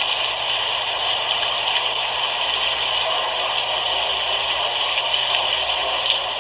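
Steady rain falling: an even, unbroken hiss of dense drops that holds the same level throughout.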